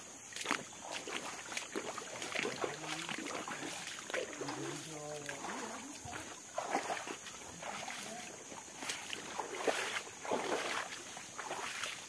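Footsteps wading through a shallow, rocky stream, water sloshing and splashing with each step. Brief talking a few seconds in.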